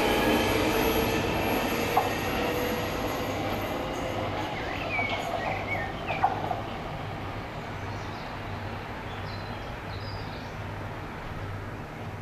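London Underground Northern line train running out of the station, its rumble and whine fading steadily away. A sharp click comes about two seconds in and a sharp knock about six seconds in, with a few short high chirps between them.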